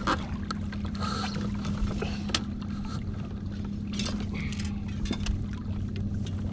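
Minn Kota electric trolling motor on a kayak running with a steady low hum, with a few light clicks and knocks over it.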